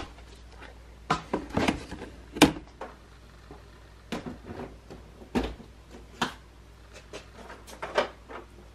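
Hard plastic incubator parts being handled and set into a styrofoam base: a series of irregular clicks and knocks, the loudest about two and a half seconds in.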